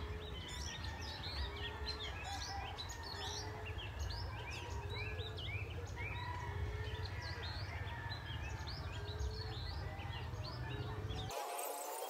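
Many small birds chirping over one another, with a short low note repeating about once a second, over a steady low rumble. Everything cuts off suddenly near the end.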